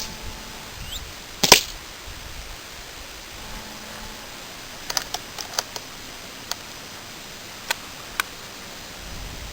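RWS 850 Air Magnum .22 CO2 air rifle firing a single shot, a sharp crack about a second and a half in. Several lighter clicks follow a few seconds later.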